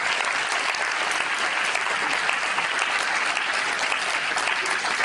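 A large seated audience applauding, many hands clapping in a steady dense patter.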